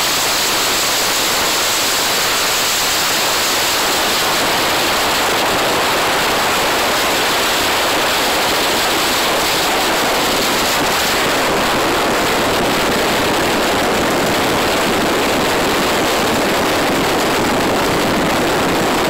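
Loud, steady rush of wind and road noise from filming out of the open window of a car travelling at road speed.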